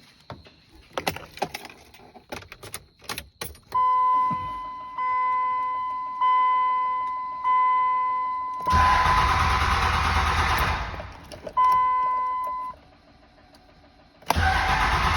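Keys and light clicks, then the truck's warning chime beeping about once a second. The starter then cranks the 2003 5.9 Cummins diesel for about two seconds without it firing. After one more chime it cranks again near the end: the engine turns over but won't start, even with the fuel pressure control disconnected.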